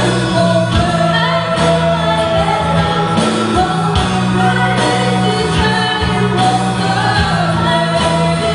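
Live band music with a woman singing a melody over electric guitars and a drum kit, drum hits steady throughout.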